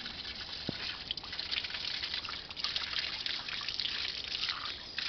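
Water running from an outdoor tap and splashing over hands being washed under it into a stone basin: a steady spattering trickle.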